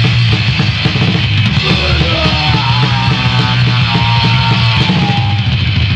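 Hardcore punk band playing loud and fast in rehearsal: distorted guitar and drums, with a held, wavering note rising above the band from about two seconds in until near the end.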